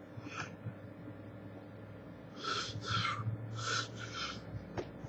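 A man breathing out hard through the nose and mouth in a run of gasps, starting about two seconds in, with a low voiced hum under them. One sharp click comes near the end.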